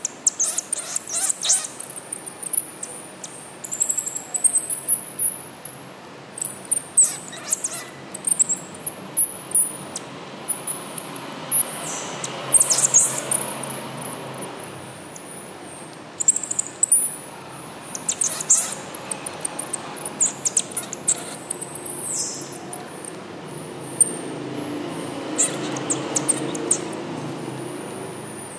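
Pygmy marmoset giving many short, very high, thin chirps and squeaks with quick pitch glides.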